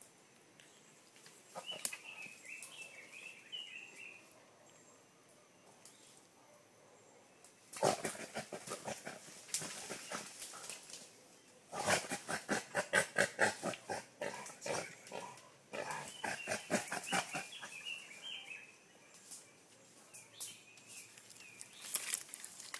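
Wild boar grunting in rapid runs of short, harsh pulses, about five a second at their fastest, with higher wavering calls in between.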